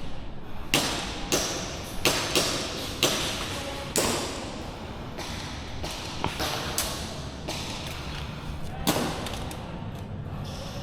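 Airsoft guns firing single shots: about nine sharp, irregular pops, most in the first four seconds and one more near the end, each trailing off in a short echo.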